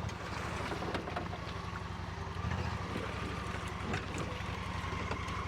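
Old 6-horsepower Mercury outboard motor running steadily at an even pace on a small aluminium jon boat.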